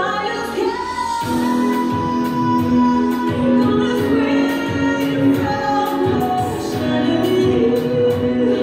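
Kizomba music: a woman singing long held notes over a steady beat.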